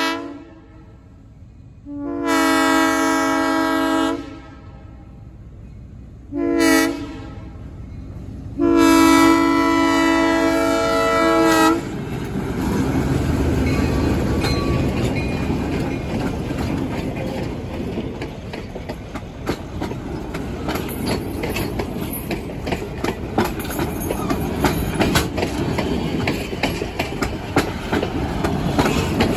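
Whitewater Valley Railroad diesel locomotives 709 and 25 sounding the grade-crossing horn signal: the end of one blast, then long, short, long, the last stopping about twelve seconds in. The locomotives then pass with their diesel engines running, and the passenger coaches' wheels click steadily over the rail joints.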